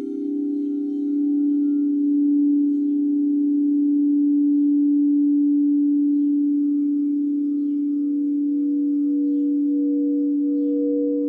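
Sound bowls ringing in long, sustained, overlapping tones that slowly swell and ebb. From about halfway through, a higher tone comes in with a pulsing waver and grows louder.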